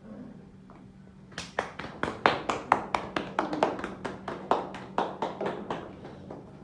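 A few people clapping hands, about five claps a second, starting about a second and a half in and stopping near the end.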